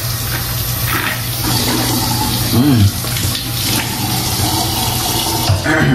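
Water tap running into a washroom sink, a steady rush of water.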